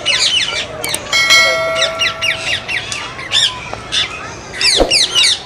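Ringneck parakeets squawking in rapid runs of short, high calls that fall in pitch, with one steady held note about a second in.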